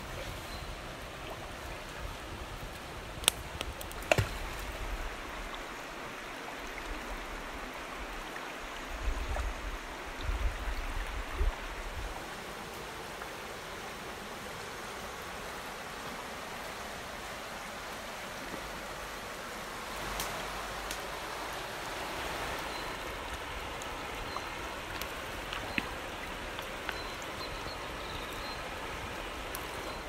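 Shallow mountain river (the Yugovska) running over stones: a steady rush of water. Two sharp clicks about three and four seconds in, and a few low thumps around ten seconds in.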